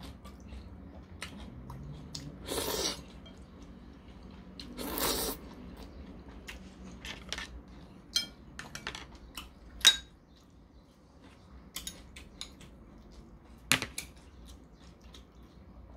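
Udon noodles slurped loudly twice, a couple of seconds apart, between scattered light clicks and clinks of chopsticks and a metal spoon against a porcelain bowl.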